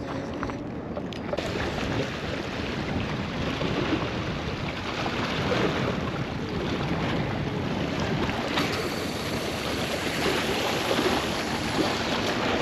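Steady wind noise on the microphone with the wash of waves, filling in and getting fuller about a second and a half in.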